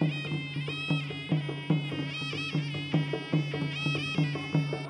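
Traditional Khmer boxing ringside music: a sralai reed oboe plays a wavering, nasal melody over a steady drum beat of about two to three strokes a second.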